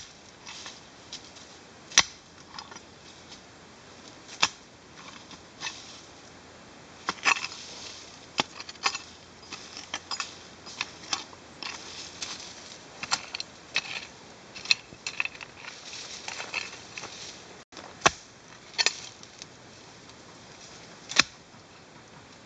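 Pickaxe striking and chopping into dry soil at the base of a wild tamarind tree, hollowing out the ground beneath it to expose the roots. Irregular sharp hits come roughly one every second or two, with dirt and dry leaves crunching and scattering between them.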